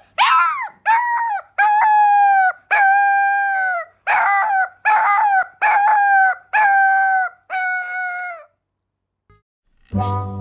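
Puppy howling: a string of about ten high-pitched howls, most short and a couple drawn out, each bending down in pitch as it ends. They stop a couple of seconds before the end, and music starts near the end.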